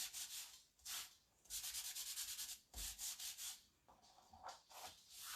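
Quick back-and-forth rubbing strokes of a hand-held craft tool over a surface, in short runs of about five or six strokes a second with brief pauses between.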